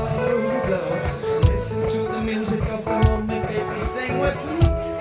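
Music led by acoustic guitar, with a steady beat.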